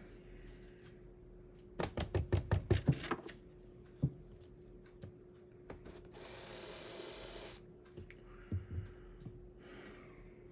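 A quick run of about ten light clicks and taps as small HO slot car chassis parts are handled, then a spray can hissing for about a second and a half, and a few more taps.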